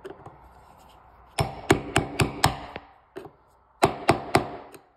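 Flathead screwdriver knocking and clicking against the metal retaining ring on a casement window operator's arm stud, working the ring back into its groove. A quick run of about five sharp metal clicks, a short pause, then a few more.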